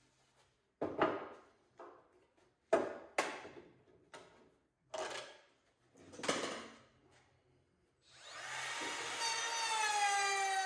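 Several sharp knocks as wooden boards are handled and set down on a metal assembly table, then about eight seconds in a handheld router starts and runs with a steady whine.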